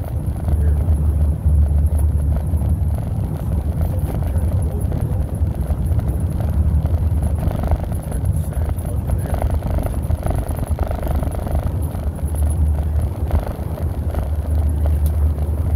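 Vehicle driving at highway speed, heard from inside the cab: a steady low rumble of engine and tyre-on-road noise.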